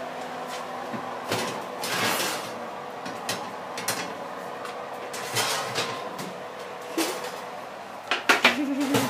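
Bull terrier's claws clicking and scuffing on a tiled floor as she moves about, irregular sharp clicks and knocks, with a quick cluster of louder ones near the end.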